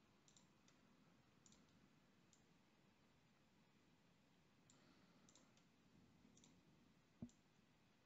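Near silence with faint, scattered computer mouse clicks and one soft low thump near the end.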